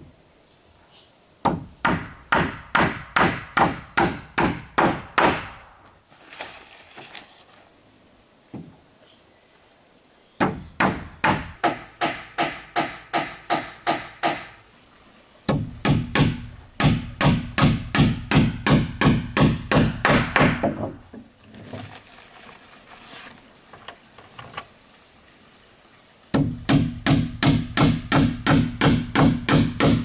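Hammer nailing down wooden floor planks: runs of quick, even strikes, about three a second, in four spells with short pauses between them.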